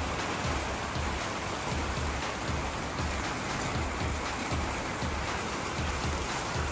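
Steady rain falling on a corrugated clear plastic roof, an even hiss of drops.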